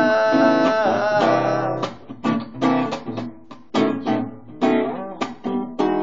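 Acoustic guitar: a held sung note rings over the chords for about the first second, then the guitar goes on alone in a run of sharp, uneven strums, the closing bars of the song, and a final chord rings out near the end.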